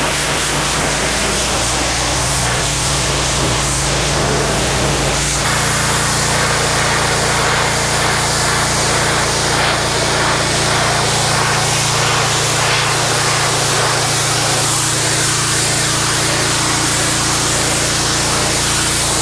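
Gas pressure washer running with its wand blasting water onto concrete: a steady hiss of spray over the engine's steady hum, whose pitch shifts about five seconds in.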